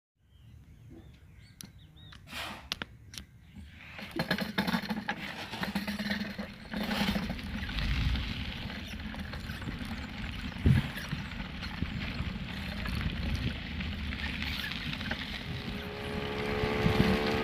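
Bicycle rolling over a rough dirt track: a few knocks, then from about four seconds in a steady rough rumble with constant small rattles and knocks.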